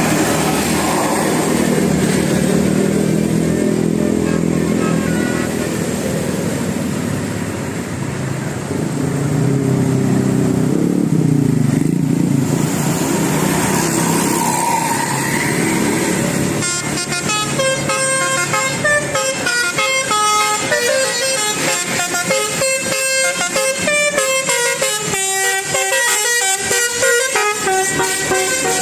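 Vehicle engines running for about the first half, then a bus's 'telolet' multi-tone air horn plays a fast tune of short stepped notes to the end.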